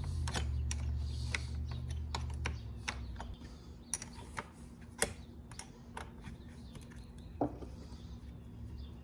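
Light, irregular clicking and tapping of hand tools and small metal parts as fasteners are taken off a Husqvarna 136 chainsaw, quicker in the first few seconds and sparser after. A low hum fades out about two and a half seconds in.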